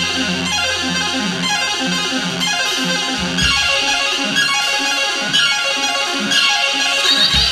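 Loud music: synthesizer and guitar parts playing a quick repeating pattern of notes, with occasional low thumps.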